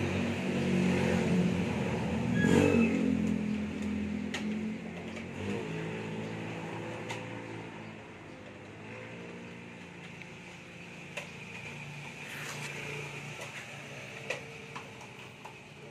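A motor vehicle engine running, loudest in the first few seconds and then fading away. A few sharp clicks sound over it.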